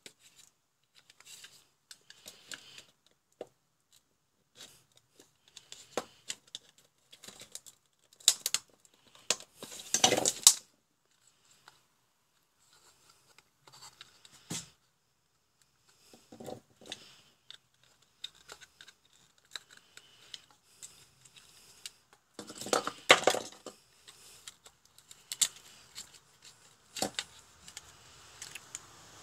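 Plastic housing of a motion sensor being pried apart with a screwdriver and handled: scattered clicks, knocks and scrapes of plastic and circuit boards, with louder bouts of scraping about ten seconds in and again about twenty-three seconds in.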